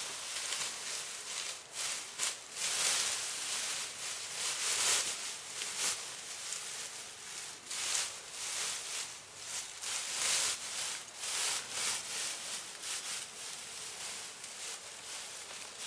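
Irregular rustling and scraping noise in uneven swells, without a steady rhythm.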